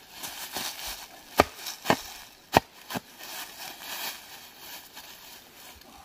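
Four sharp knocks about half a second apart: a hand tool striking the ground while digging out a buried steel cable.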